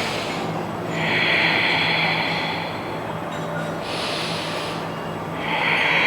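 Deep, slow breathing through the nose during a yoga breathing exercise: two breath cycles, each a short, higher hiss followed by a longer, lower breath of about two seconds.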